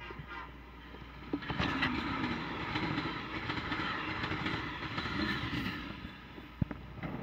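Amtrak passenger train passing through the station at speed: the rush of wheels and cars rises sharply about a second and a half in, with scattered wheel clicks, and eases off near the end.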